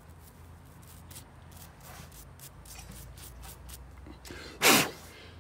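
Faint scratching strokes of a small brush scrubbing the carburetor jet of a Honda GCV190 engine, then one short, loud puff of breath, near the end, blowing the jet clean.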